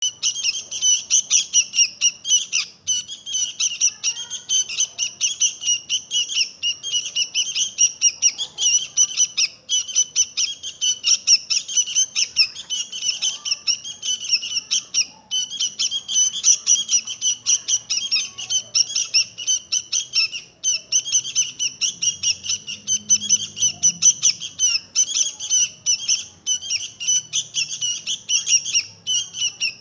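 Sooty-headed bulbul (kutilang) singing on and on: a fast, unbroken stream of chattering notes.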